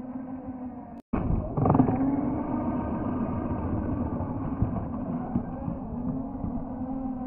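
Electric motor and geared drivetrain of a Redcat Shredder RC monster truck on a 4S battery, whining while it drives and bashes through deep snow, its pitch rising and falling with the throttle. The sound cuts out briefly about a second in and comes back louder.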